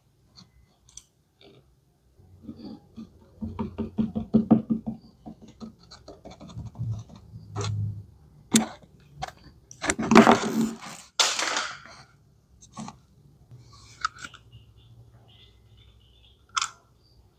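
Plastic dolls and a small plastic toy first-aid case handled by cloth-gloved hands: scraping and rubbing with several sharp clicks, and a louder rustling scrape about ten seconds in.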